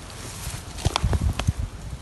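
Black corrugated roofing sheet being handled and shifted over dry grass: a quick run of dull knocks and scrapes about a second in.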